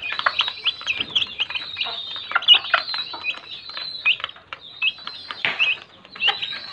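Baby chicks peeping rapidly and continuously, several short high chirps a second, mixed with short taps as they peck at a plastic feeder trough.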